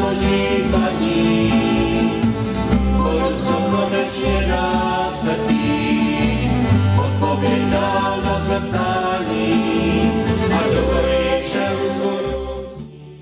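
A small church music group singing a song, accompanied by acoustic guitars and a double bass; the music fades out near the end.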